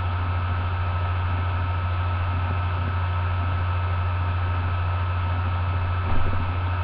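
Steady low electrical hum with hiss from the recording setup's microphone, with a soft low bump near the end.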